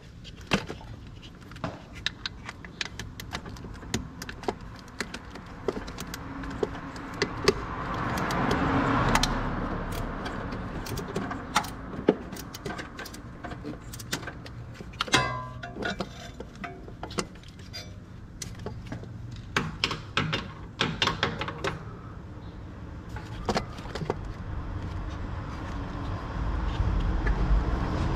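Irregular metallic clicks and clinks of hand tools and metal parts being handled, with a low rumble building near the end.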